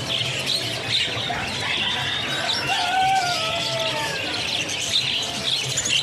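A dense chorus of caged budgerigars chirping and chattering.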